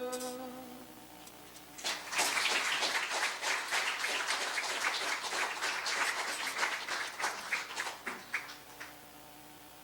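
The last held chord of a worship song fades out, then a congregation applauds, starting about two seconds in and thinning out to a few last claps near the end.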